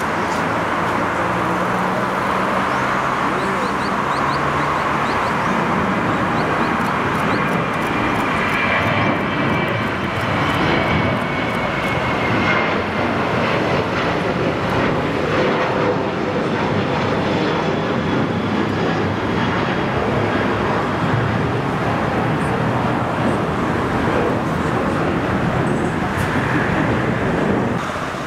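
Boeing P-8A Poseidon's twin CFM56 turbofan jet engines at takeoff power as it climbs out, a loud, steady rush of jet noise with a faint high whine through the first half.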